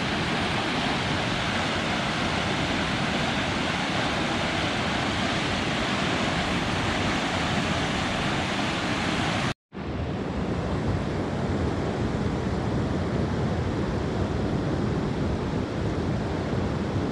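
A flooded river in spate, raging: a steady rush of fast floodwater pouring over a rapid. The sound drops out for a moment about ten seconds in, then the rushing water carries on.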